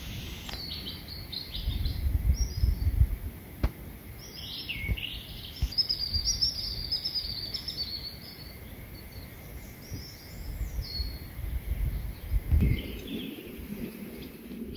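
A songbird singing in quick, high warbling phrases, with one longer run a few seconds in. Under it, a low rumble of wind on the microphone swells twice.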